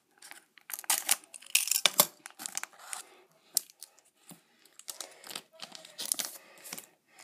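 Clear plastic wrapper of a hockey card pack being torn open and crinkled: an irregular run of sharp crackles and rustles.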